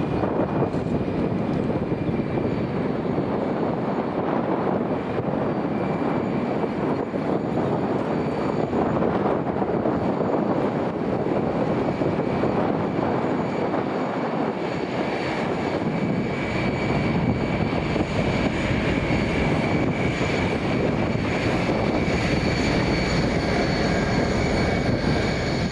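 A passing train: a steady heavy rumble and rush with thin high-pitched whines over it, the whines growing stronger about halfway through.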